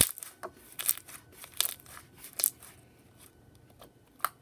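Glittery slime being poked and pressed, crackling: a series of sharp pops and clicks, the loudest right at the start and several more over the next two and a half seconds.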